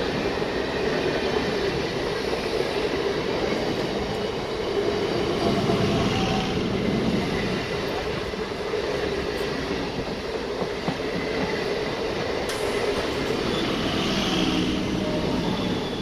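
A train running past on the track: a steady rumble and rattle of wheels on rail that holds at an even level throughout.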